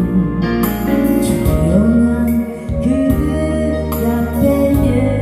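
A ballad sung in Korean over an instrumental backing track, with a steady bass line underneath.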